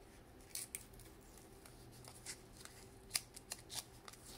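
Fingernails picking at the edge of an old paper sticker and peeling its backing: faint, scattered crackles and ticks of stiff paper, the sharpest about three seconds in.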